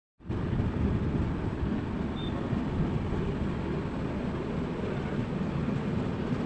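Moving passenger train heard from an open coach door: a steady, low rumble of the wheels running on the track, cutting in abruptly just after the start.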